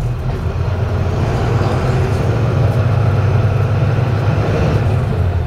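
Twin-engine jet airliner flying low overhead: a loud, steady jet engine rumble with a fainter hiss above it.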